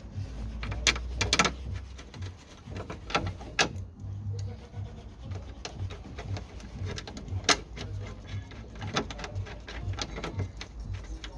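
Irregular metallic clicks and light scraping of a hand tool screwing the two 8 mm bolts of a bonnet catch back in.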